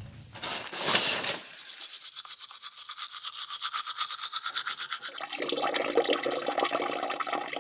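A toothbrush scrubbing in quick, even strokes, about ten a second, starting a little over a second in.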